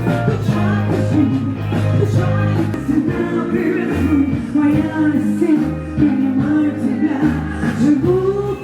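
A rock band playing a song, with a singer holding drawn-out notes over a moving bass line and drums.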